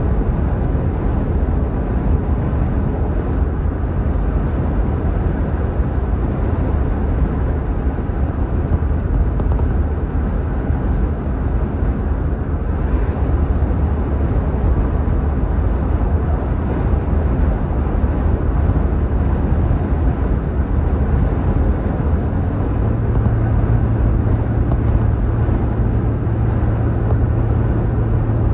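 Car cruising at highway speed, heard from inside the cabin: a steady drone of engine and tyre noise. About 23 seconds in, a second, slightly higher hum joins the drone.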